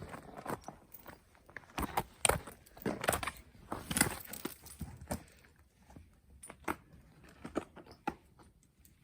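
Hiking footsteps on a snowy mountain trail: irregular crunching steps about one or two a second, louder in the first half and fainter in the second half.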